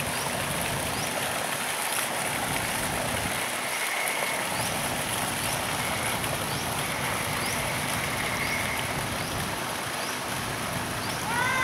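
Steady outdoor rushing hiss, like water or rain, with faint short rising chirps high up repeating about once a second.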